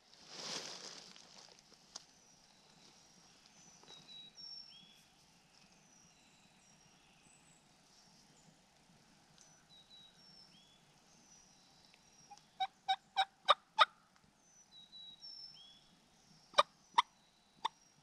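Turkey yelping, a quick run of about six sharp notes, followed near the end by four spaced clucks, over faint songbird chirps. A brief rustle comes just at the start.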